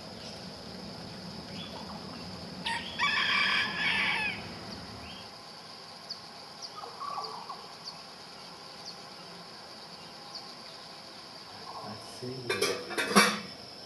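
A rooster crows once, a cock-a-doodle-doo lasting under two seconds about three seconds in, over a steady high-pitched insect hum. Near the end comes a quick run of sharp knocks.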